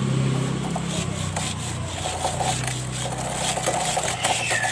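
Cotton waste being rubbed along a kerosene-wet motorcycle chain, a scratchy scrubbing with small clicks of the chain links, over a low steady hum that fades out after about three seconds.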